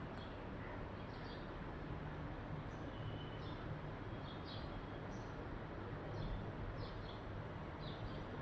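Faint, short high-pitched bird chirps, roughly one to two a second and irregular, over a low steady background hum.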